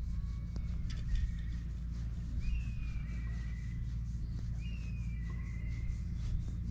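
Ginger cat purring close up as its chin is scratched, a low steady rumble. A bird calls twice in the background, each call a falling whistle that levels off.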